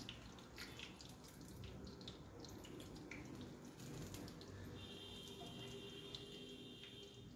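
Samosas shallow-frying in hot oil in a frying pan, nearly golden-brown: a soft, steady sizzle with scattered crackles and pops. A steady high tone sounds for about two seconds in the second half.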